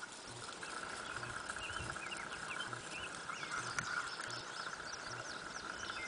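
Quiet field ambience: faint, scattered bird chirps over a steady high drone.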